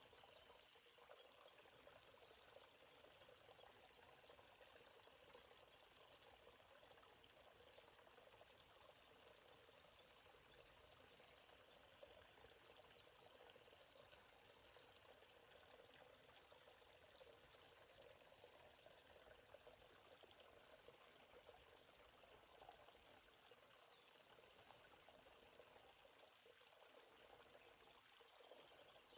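Steady high-pitched chorus of insects, unbroken throughout, over the faint even rush of a forest stream.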